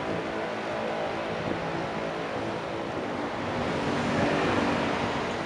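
Steady city traffic noise, swelling slightly about four seconds in.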